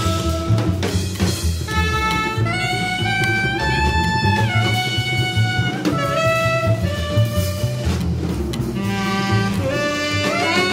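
Instrumental jazz music: a lead melody of long held notes with occasional slides, over a steady rhythm section.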